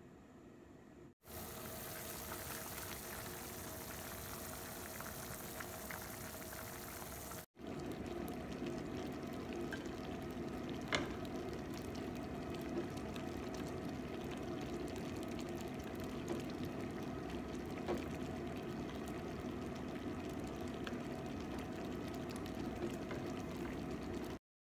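Lentil and vegetable soup bubbling at a simmer in a pan, starting about a second in, with a brief break after about seven seconds. A few light knocks of a spoon stirring it.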